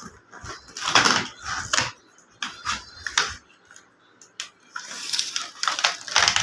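Packaging being handled during an unboxing: a string of sharp clicks and knocks, then a burst of rustling near the end.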